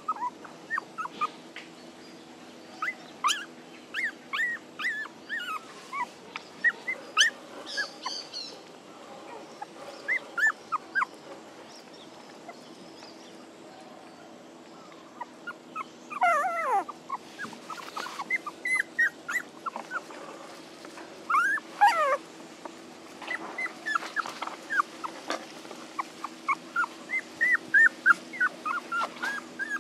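A litter of young puppies whimpering and crying: many short, high-pitched squeals, singly and in quick runs, with a lull about halfway through. These are puppies crying for their absent mother.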